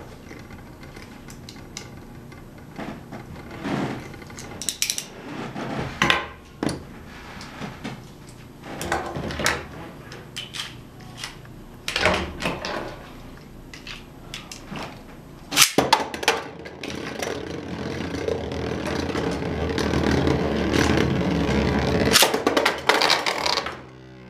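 Plastic spinning tops in a plastic battle stadium: scattered knocks and clatter of the top and of hands handling the parts, then a steady whirring that grows louder for several seconds and breaks off near the end.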